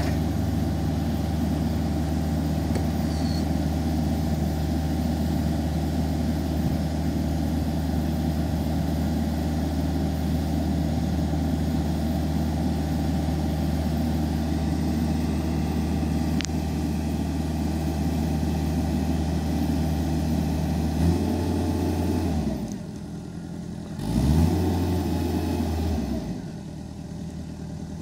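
Jacobsen R-311T commercial mower's engine running at a steady speed. Near the end the engine speed drops, rises briefly again, then settles to a lower, quieter running speed.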